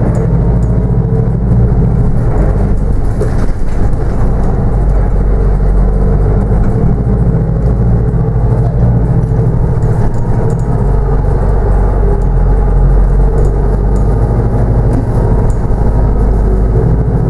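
Inside a New Routemaster hybrid double-decker bus on the move: steady low drivetrain hum and road rumble, with a faint steady whine above it.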